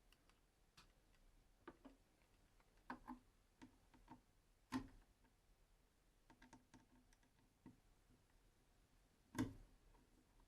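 Faint, scattered small clicks and taps of screws and plastic latch parts being handled on a car's glove box door, with two louder sharp knocks about halfway through and near the end.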